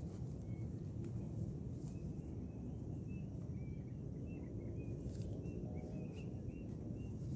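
Small birds chirping in short high notes, many in quick succession from about two seconds in, over a steady low rumble.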